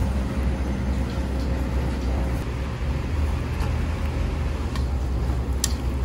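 Steady low background rumble of street noise, with a few short, sharp clicks in the second half.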